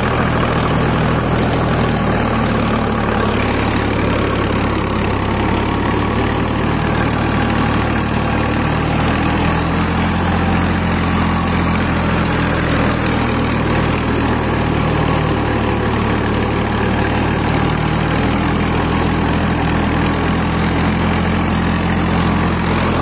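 Sonalika DI 42 tractor's diesel engine running steadily under load while driving a rotavator through the soil, heard from the driver's seat.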